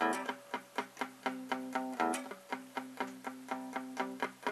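Electric guitar with a clean tone, a C power chord picked in steady palm-muted strokes at about four a second, each note cut short by the resting hand. Fuller, brighter strums come at the start and about two seconds in.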